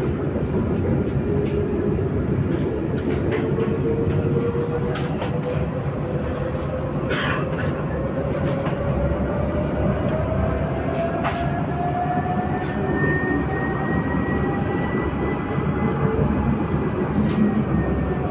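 Jerusalem Light Rail tram running between stops, heard from inside the car: a steady rumble of wheels on rails, with a long whine that slowly rises in pitch and eases off near the end, and a few clicks.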